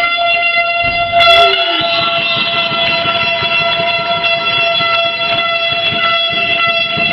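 A horn holds one long, steady note. A short, sharp noise cuts over it about a second in.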